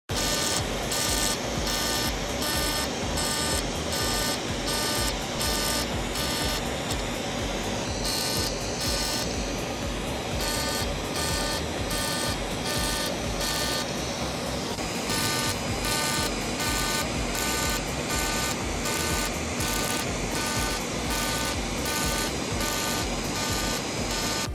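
Fractional CO2 laser treating skin, firing in a steady rhythm of about two shots a second, with the machine beeping in time with the pulses.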